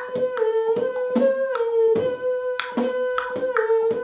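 Beatboxing: a melody hummed through the nose, stepping between two close notes, while the mouth layers a lip kick drum and sharp click percussion in a steady beat over it.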